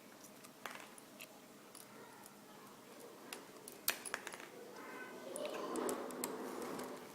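Small scattered clicks and taps of a small Phillips screwdriver working the screen-bracket screws of a laptop display, with one sharper click about four seconds in. In the last two seconds a faint voice-like sound rises underneath.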